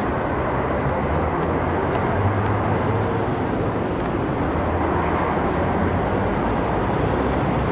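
Steady outdoor city noise, mostly the low rumble of street traffic.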